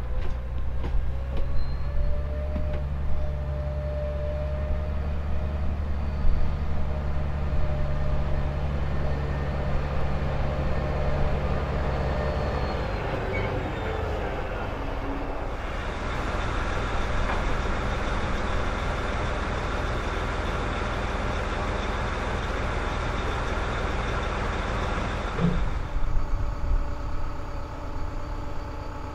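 Diesel engine of a heavy multi-axle mobile crane truck running as it drives up and passes close by; its low engine note fades about halfway through. Later, truck engines idle steadily.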